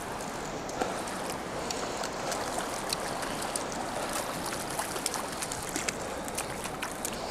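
Steady rushing of a shallow, fast-flowing river over a riffle, with scattered small ticks and splashes.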